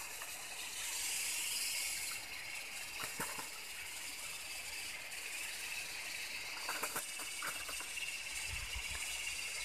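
Steady high-pitched hiss of an insect chorus from the surrounding tropical vegetation, with a few faint clicks about three seconds in and again near seven seconds.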